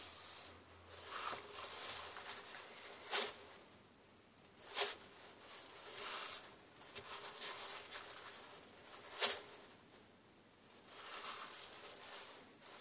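Monitor lizard working a whole large mouse in its jaws: dry rustling of wood-chip substrate as it shakes and repositions the prey, broken by three sharp crunching snaps of its bite.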